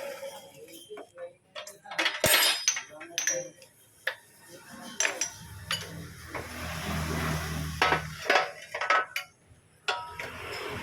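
Metal hand tools working on a car's front suspension: scattered clinks, ratchet-like clicks and knocks, with one sharp metal strike about two seconds in. A low steady hum runs for about three seconds in the middle.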